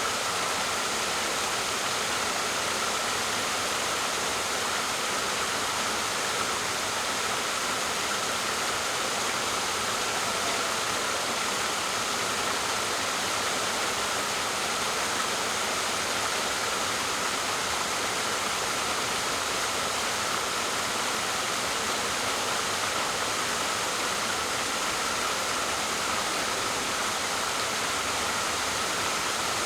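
Waterfall: water falling and splashing in a steady, even rush, with no change in level.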